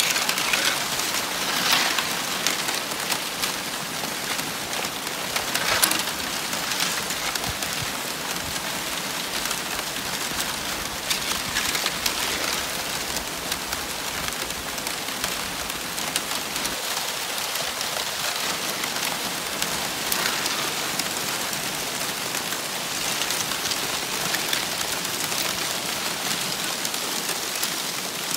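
Thin plates of broken sea ice shuffling and rubbing against one another, a dense, rain-like crackle of many small clinks and tinkles that swells louder a few times.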